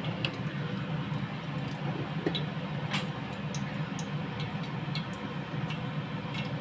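Whole spices crackling in hot oil in a pot, with irregular sharp pops over a steady low hum.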